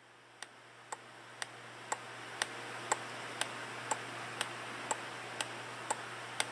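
Turn-signal ticking from a three-in-one reversing horn unit: sharp, even clicks about twice a second, over a faint steady hum and hiss.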